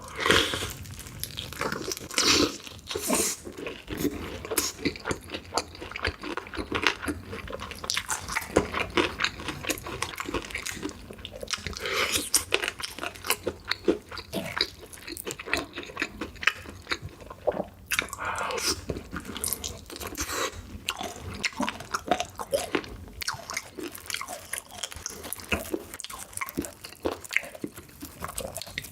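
Close-miked eating: repeated crunchy bites and chewing, a dense run of crackles and smacks.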